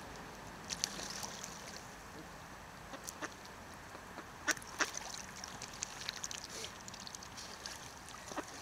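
Ducks close by on the water, calling softly, with scattered small clicks and splashes at the surface.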